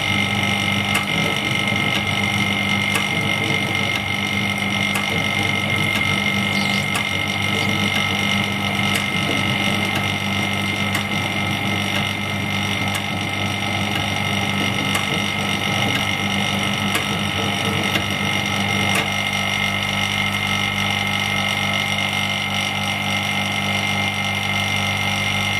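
Steady electric hum of an LCD separator machine with its vacuum pump running, with faint regular ticks about once a second.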